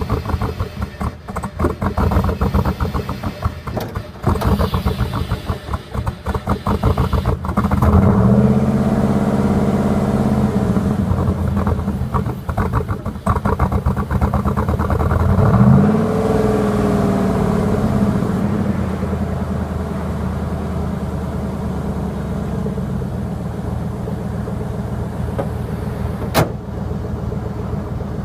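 Chevrolet Silverado's 5.3-litre V8 running through a muffler-delete 3-inch exhaust. It sounds choppy and uneven at first, climbs in pitch about eight seconds in and holds there, rises sharply again around halfway, then drops back to a steady drone. A short sharp click comes near the end.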